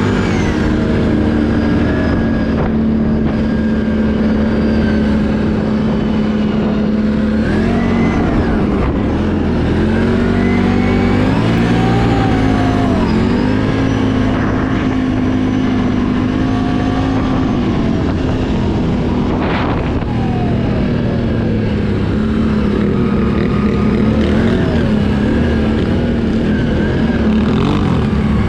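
Can-Am ATV engine running under way. Its note holds steady, then dips and rises several times as the throttle is eased and opened again, with one short sharp noise about twenty seconds in.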